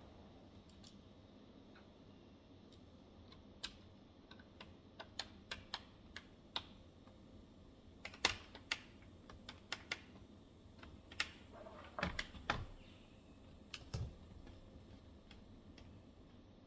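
Typing on the Clevo N850EJ laptop's keyboard: irregular key presses, some single and some in quick clusters, beginning a few seconds in and stopping a couple of seconds before the end.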